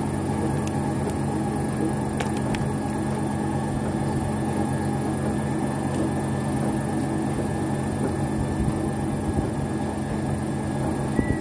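Pump motor running with a steady low hum. A few light clicks come in the first seconds as the cast net is handled, and a whistled music tune begins right at the end.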